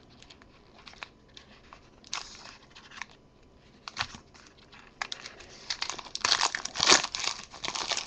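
Panini Momentum football card pack wrapper crinkling and being picked and torn open by hand in scattered bursts, getting busier in the last couple of seconds. The pack is hard to get open.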